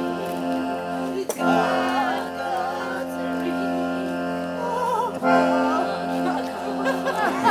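Live music: a wavering sung melody line over steady held accompanying notes, with two short breaks between phrases.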